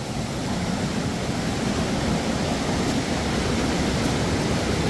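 Waterfall rushing: a steady, even wash of falling water.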